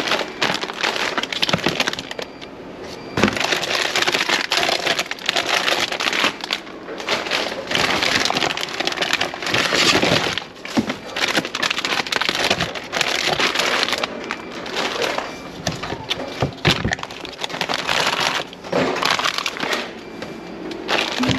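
Plastic food wrappers and cardboard boxes crinkling and rustling as gloved hands rummage through a wheelie bin and lift packs out, with a few sharper knocks.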